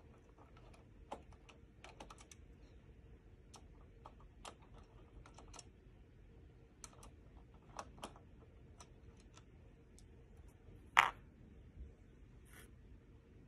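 Small screwdriver backing the screws out of a graphics card's backplate: scattered light clicks and ticks of the driver and screws, with one much louder sharp knock near the end.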